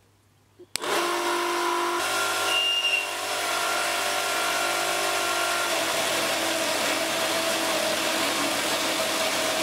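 Home-built electric chainsaw mill's electric motor switching on abruptly about a second in and running steadily, driving the saw chain, with a slight drop in pitch about halfway through.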